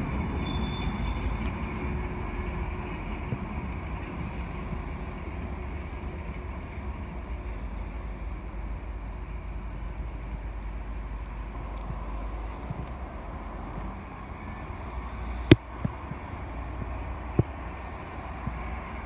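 Diesel engine of a rail maintenance-of-way motor car running with a steady low rumble that slowly fades. Two sharp knocks stand out near the end.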